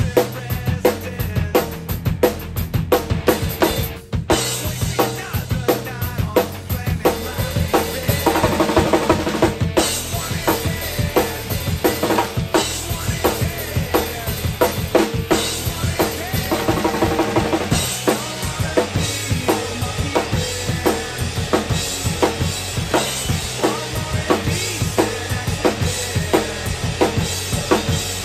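Acoustic drum kit played hard and fast: a driving rock beat of snare, bass drum and Zildjian cymbals, with dense fills. The song's recording, with bass and guitar, is heard under the drums.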